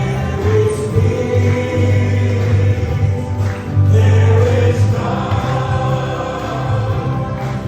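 Gospel-style praise music: a choir singing held notes over instrumental backing with a steady bass line.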